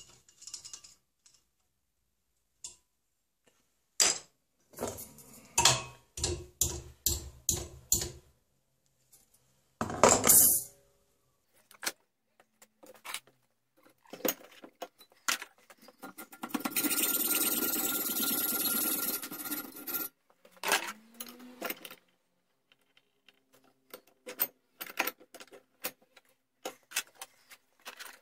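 Metal clanking and knocking from a bench vise: its steel handle is swung and slid, a steel bar is clamped and shifted in the jaws, and hand tools are knocked against each other on the workbench, with one louder knock about ten seconds in. A steady noise lasts about three seconds a little past the middle.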